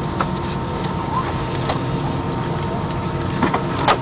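Steady cabin hum of an Airbus A320 on the ground, its IAE V2500 engines idling, with a low rumble and a few light clicks.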